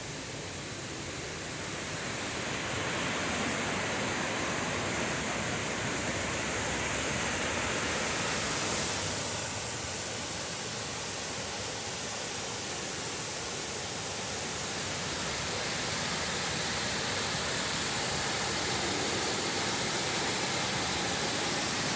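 A 65-foot waterfall plunging over sandstone and shale ledges, a steady rushing roar of falling water.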